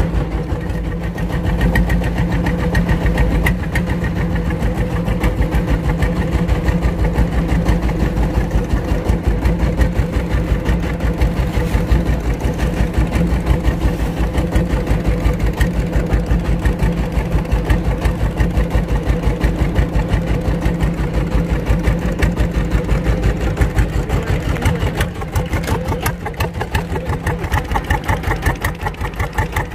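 Boat engine running steadily with a fast, even pulsing beat.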